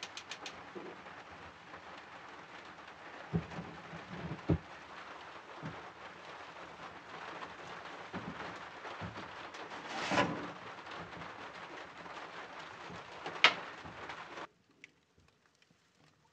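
Steady rain falling on an outdoor cover, with a few knocks and thumps around 3 and 4.5 seconds in and louder bursts near 10 and 13.5 seconds. It cuts off suddenly about 14.5 seconds in.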